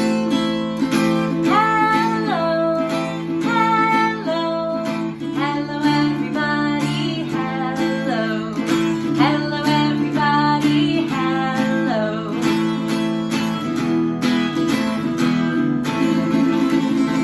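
Acoustic guitar strummed steadily through a cheerful intro tune. A melody line rides over the chords from about a second in until about twelve seconds.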